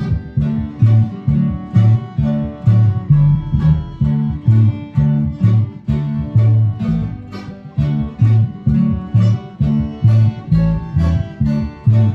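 Bluegrass group playing an instrumental tune on acoustic string instruments, led by an acoustic guitar strumming a steady bass-note-and-strum rhythm at about two beats a second.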